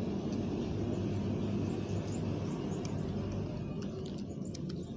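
Steady low outdoor background rumble, fading slightly toward the end, with a few faint ticks.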